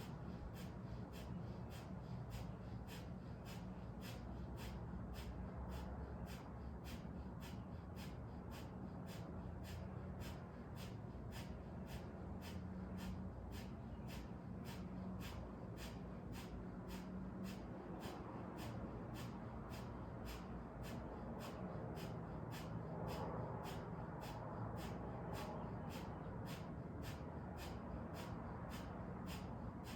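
Breath of fire (kapalabhati-style yogic breathing): rapid, rhythmic breaths in and out through the nose, each a short sharp puff, about two a second, held at an even pace.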